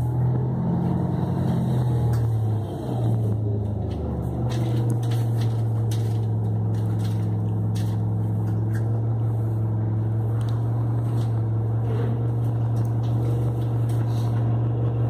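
City transit bus engine and drivetrain heard from inside the passenger cabin: a low hum that shifts in pitch over the first few seconds, then settles into a steady drone. Light clicks and rattles are scattered through it.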